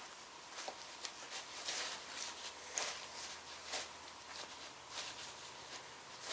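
Faint, irregular clicks and rustles of hands working on a vintage Craftsman ratchet and its small parts, a few light ticks a second, unevenly spaced.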